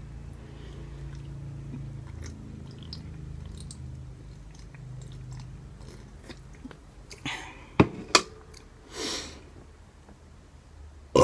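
Gulping and swallowing of soda drunk straight from an aluminium can, with the can tipped back, over a low steady rumble. Two sharp clicks come about eight seconds in, then a short breathy exhale, and a loud burp starts at the very end.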